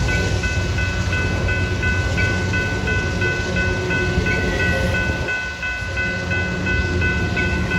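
Double-stack intermodal container cars rolling past, wheels rumbling steadily on the rails, with a brief lull about five and a half seconds in. Over the train, a grade-crossing bell rings steadily in a quick, regular beat.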